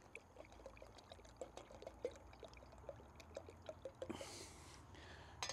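Milk poured from a carton in a thin stream into a pot of hot water on a camping stove, faint and steady, with a short hiss about four seconds in.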